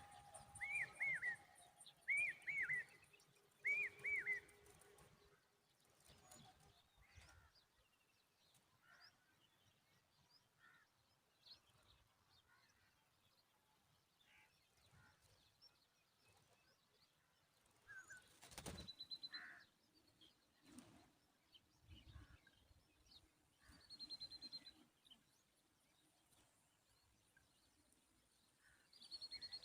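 Common babbler calling: a run of four loud, arched, rising-and-falling calls in the first few seconds, then long quiet stretches with scattered faint chirps and an occasional thin high note. A single sharp click comes about two-thirds of the way through. The calling is the noise made to protect its young.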